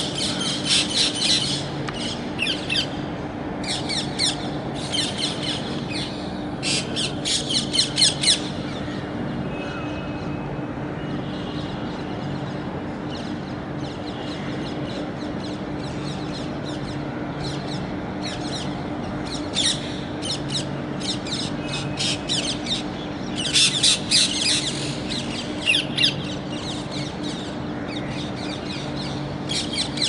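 Parrots squawking in bursts of rapid, harsh calls, busiest in the first eight seconds and again from about two-thirds of the way through, over a steady low hum.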